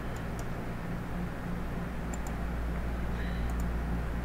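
Steady low electrical hum and hiss, with a few light computer mouse clicks in pairs, about three pairs over the few seconds.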